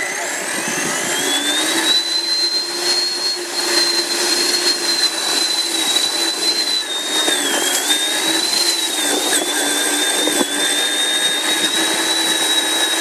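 Traxxas Summit electric RC truck's motor and gears whining as it drives, heard up close. The whine rises in pitch over the first two seconds as the truck speeds up, then holds high with small dips and wobbles.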